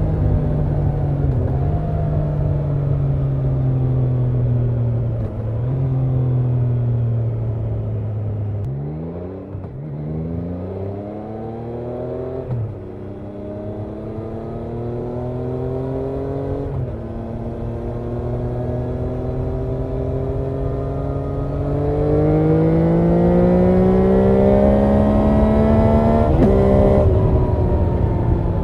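Triumph Trident 660's 660cc inline three-cylinder engine and exhaust under way. The revs fall off at first, then climb through the gears in several pulls with a quick drop at each upshift. The last pull is the strongest and loudest.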